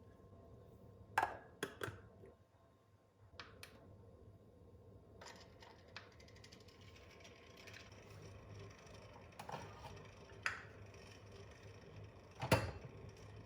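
Several sharp clicks and knocks at irregular intervals over a faint steady hum, the loudest knock near the end.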